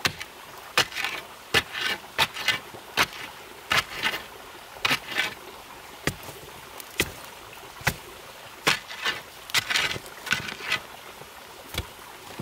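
Glowing charcoal fire inside a clay iron-smelting furnace crackling, with sharp pops at irregular intervals and short bursts of crackle over a steady low hiss.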